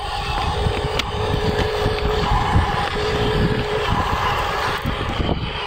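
Huina RC dump truck's small electric motor and gearbox whining as it drives over dirt, the whine coming and going with the throttle, over a steady low rumbling noise.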